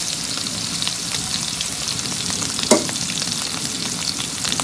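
Pieces of salted Indian mackerel sizzling and crackling in hot oil in a wok as they fry toward golden brown, stirred with a wooden spatula. The crackle is steady, with one louder click a little over halfway through.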